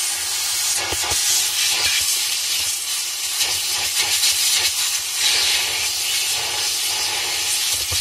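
Vacuum cleaner running, its crevice nozzle drawing air through the holes of a top-loading washing machine's wash plate: a steady rushing hiss, with a few brief knocks about a second and two seconds in.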